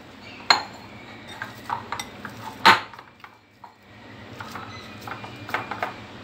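A glass mixing bowl knocking and clinking against a stone countertop while dough is kneaded in it by hand: scattered light ticks, with two sharper knocks about half a second and nearly three seconds in.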